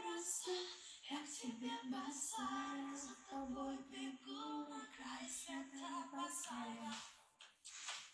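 A woman's voice singing a melody with long held notes, fading out about seven seconds in.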